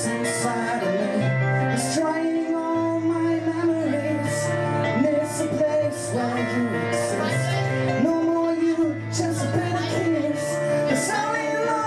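Live song played on acoustic guitar and keyboard, with a male voice singing the melody.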